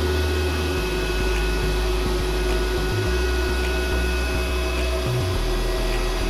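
Cooling fan (blower) of a Mitsushi MIT-330 IGBT inverter welding machine running steadily while the switched-on machine idles without welding, a constant whir with a steady high whine. Underneath, a low rumble shifts a few times.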